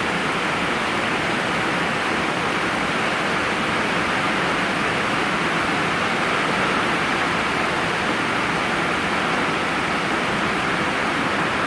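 Steady rain with rain gutters carrying a heavy flow of water, an even rushing wash of water without a break.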